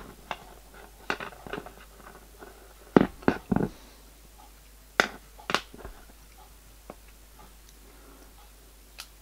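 Small clicks and taps of hands handling a metal piston and graphite-filled PTFE piston rings on a workbench mat, with three louder knocks about three seconds in and two sharp clicks about five seconds in.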